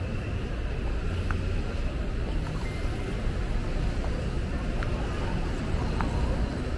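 Steady city street traffic: a low, continuous rumble of passing vehicles, with a few short clicks and a brief high tone about three seconds in.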